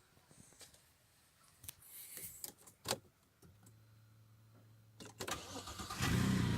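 Audi A6 C6 being started: a few light clicks, a faint steady low hum from about halfway through, then near the end the engine catches and settles into a steady idle.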